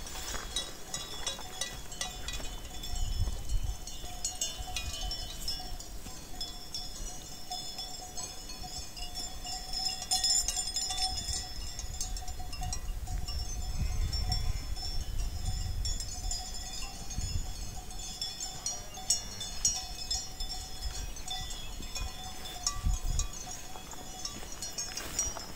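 Cowbells on grazing cows, clanking and ringing continuously.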